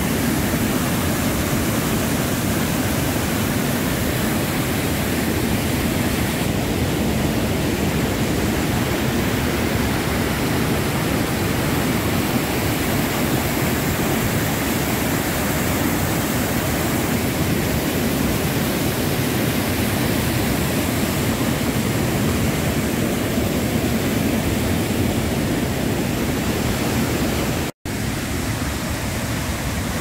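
Waterfall in heavy flow: white water pouring through a rocky gorge with a loud, steady rush. It cuts out for an instant near the end, then carries on.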